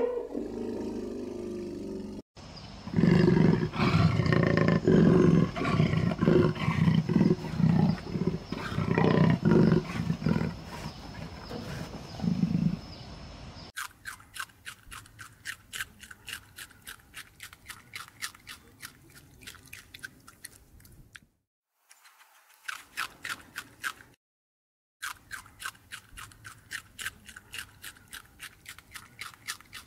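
A hippopotamus gives a run of loud, deep, pulsed grunts. After about fourteen seconds this gives way to guinea pigs and then a rabbit chewing leafy greens: a quick, crisp crunching of about four bites a second, broken by two brief gaps.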